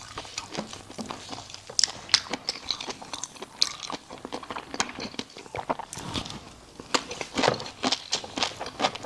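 Close-miked eating: irregular crunchy bites and chewing, with many sharp wet clicks and crackles.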